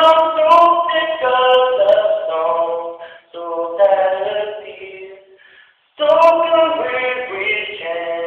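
A man singing a cappella in a high voice, long held notes that slide between pitches, with a short break about five seconds in before he picks up again.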